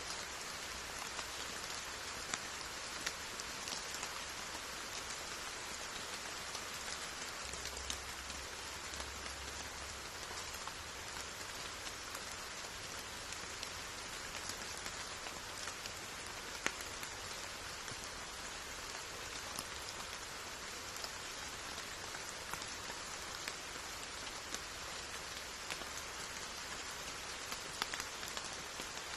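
Steady rain falling, an even hiss with scattered sharper ticks of single drops striking.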